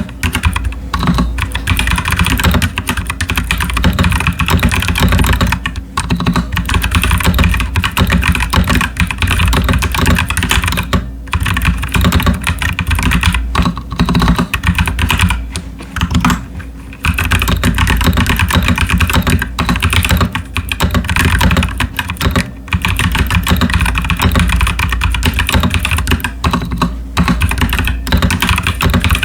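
Fast, continuous typing on a Royal Kludge RK61 mechanical keyboard with stock, unlubed Nightwalker Solaris tactile switches and PBT pudding keycaps: a dense stream of keystroke clacks with a few brief pauses.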